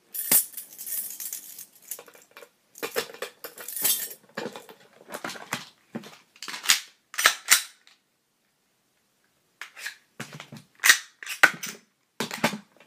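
A set of metal jiggler keys jangling and clicking as they are handled, in a run of sharp metallic rattles with a short break just past the middle.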